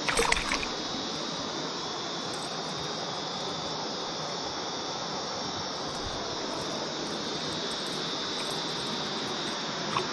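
Steady rush of flowing river water, with a short cluster of sharp clicks and knocks right at the start.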